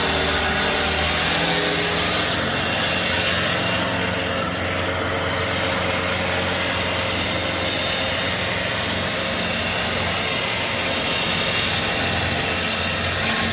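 Large stump grinder running steadily under power, its engine hum under a dense, even grinding noise.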